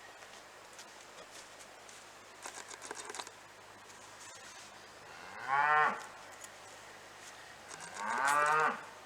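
A cow mooing twice, two calls of about a second each that rise and then fall in pitch. A short clicking rattle comes a couple of seconds before the first call.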